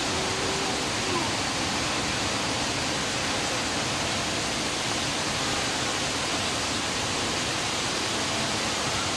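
Waterfall cascading over tiers of rock: a steady, even rush of falling water.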